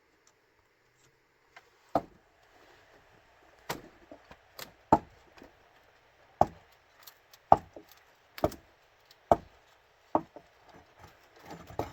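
A hand tool striking bamboo: about nine sharp strikes, starting about two seconds in and coming roughly once a second.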